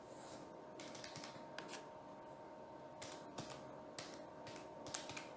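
Faint, irregular clicks and taps, a few at a time, over a faint steady hum.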